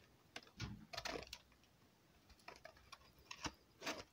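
A few faint, scattered clicks and taps of fingers handling a hand-held metal rawhide lace cutter and its freshly cut strip.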